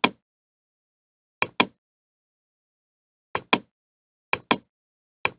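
Computer mouse clicking: sharp clicks in close pairs, a pair every second or two, with dead silence between.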